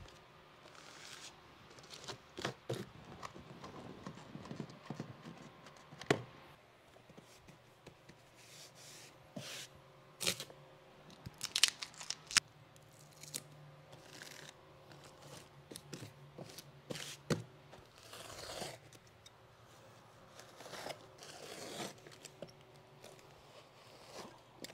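Scattered handling sounds of foam carpet underpad being fitted on stair treads and trimmed with a carpet knife: taps, short scrapes and tearing, with a sharper knock about six seconds in and a cluster of clicks around eleven to twelve seconds in.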